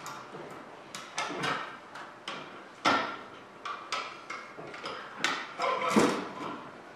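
Irregular metal clanks and knocks, some with a short ringing tail, as a welded steel-tube airplane fuselage is worked down into the slot of its rotisserie mount; the hardest knocks come about three seconds in and near the end.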